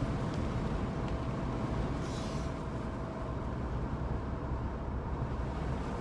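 Cabin noise inside a 2010 Volkswagen Beetle on the move: a steady low road and engine rumble, with a brief rustle about two seconds in.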